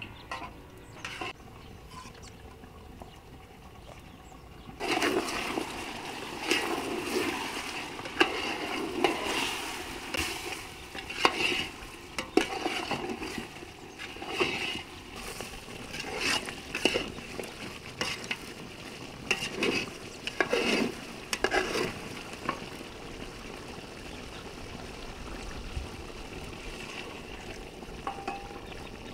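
Stirring and scraping in a cooking pot, with liquid sloshing and utensils knocking against the pot. It starts about five seconds in, is busiest until about twenty-two seconds, then settles down.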